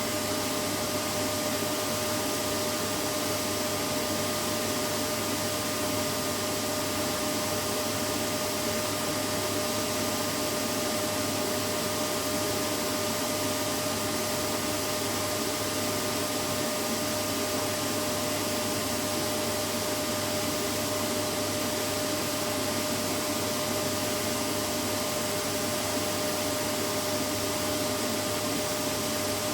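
Vacuum cleaner running steadily: an unchanging motor whine over an even rushing hiss.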